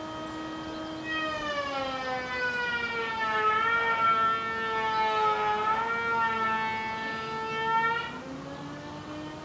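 Carpentry-shop woodworking machine whining steadily. From about a second in, a louder whine sets in and slowly sinks in pitch as it works the wood, then rises again. It cuts off near the end, leaving the steady running whine.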